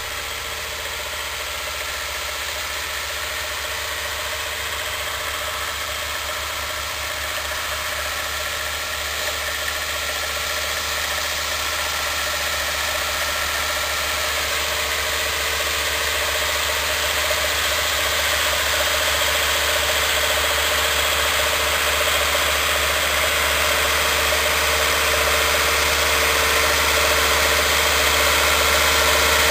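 Same Laser 100 tractor's diesel engine running steadily at constant revs while pulling a disc plough through the soil. It grows gradually louder as the tractor comes closer.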